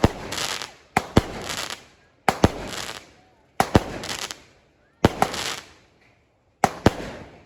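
A 36-shot fireworks cake firing shot after shot, about one every 1.3 seconds. Each shot is two sharp bangs in quick succession followed by a fading crackle.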